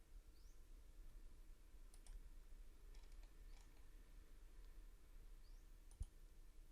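Near silence with a few faint computer mouse clicks spread out, one about six seconds in a little louder with a low thump, as a Wi-Fi network is selected and connected to.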